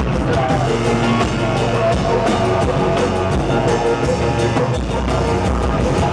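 Live band playing loud, dense music on synthesizers and electronic gear with drums, a steady wall of sustained tones over heavy bass.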